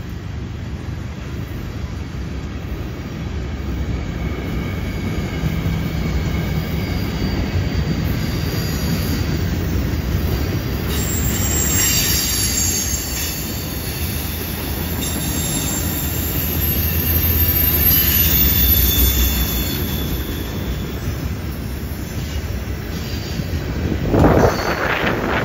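Freight cars rolling past on a curve: a steady low rumble of wheels on rail, with high-pitched wheel squeal from the curve coming and going, strongest around the middle. Near the end, a short loud rush of wind on the microphone.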